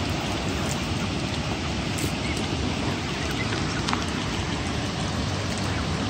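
Waterfall's rushing water, a steady even hiss, with a few faint clicks scattered through it.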